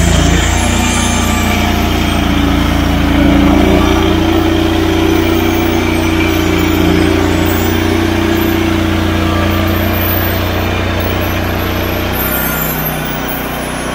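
Portable band sawmill running, its engine droning steadily; the low part of the note drops away about twelve seconds in.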